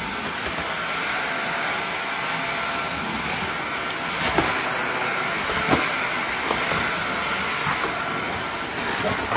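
Upright bagless vacuum cleaner running steadily, with a few short knocks over it, the clearest about four and about six seconds in.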